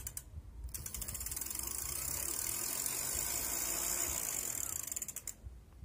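Bicycle rear freewheel ratcheting in a fast, steady run of clicks, with a brief break just after the start, and stopping about five seconds in.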